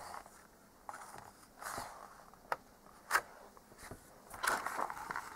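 The large paper page of a hardback picture book being turned by hand: a few soft paper swishes and scrapes, the sharpest about three seconds in.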